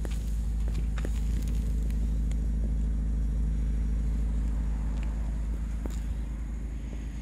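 2018 Renault Espace 1.8 TCe 225's turbocharged four-cylinder petrol engine (M5P) idling steadily, heard at the rear as a deep, even exhaust bass that eases slightly near the end.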